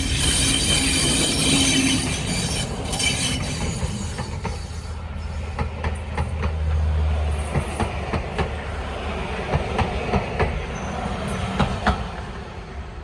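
Train hauled by a Class 50 diesel locomotive passing close by. The engine and wheel noise is loudest in the first few seconds, then gives way to a low rumble and a run of sharp wheel clicks over rail joints, dying away near the end.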